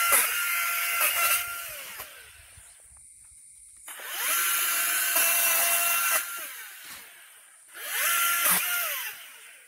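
Electric pole saw cutting branches in a tree crown, run in three short bursts. Each burst spins up to a steady whine and winds down, with quiet between bursts.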